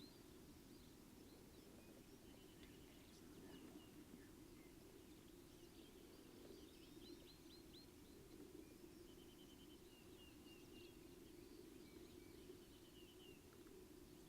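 Near silence outdoors with faint bird calls: a quick run of short chirps about halfway through, then short trills twice more toward the end.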